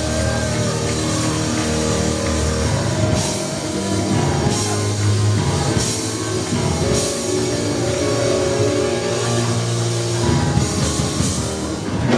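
Upbeat church band music with drums and repeated cymbal crashes over sustained chords and a heavy bass line.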